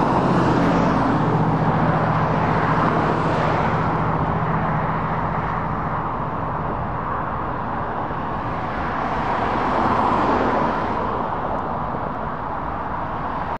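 Motor vehicle noise: a low, steady engine hum through the first few seconds over a continuous wash of passing traffic, which swells twice, at the start and again about ten seconds in.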